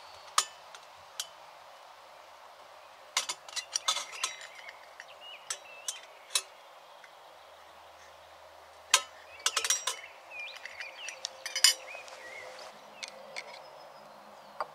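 Irregular sharp clicks and metallic clinks of small hard objects being handled, the loudest about nine and eleven and a half seconds in, with faint chirping between them.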